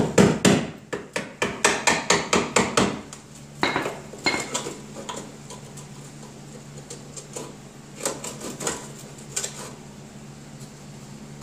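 Flat-head screwdriver knocking and prying between two sheet-steel panels of a pickup's cab corner, a quick run of sharp metallic clicks and knocks, about four a second, then a few scattered ones. The panel is being worked loose where its spot welds were drilled out with a spot weld remover.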